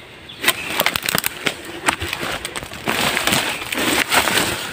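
Footsteps crunching through dry leaf litter and twigs, with brush and branches rustling and snapping, in an irregular run of crackles as someone pushes fast through forest undergrowth.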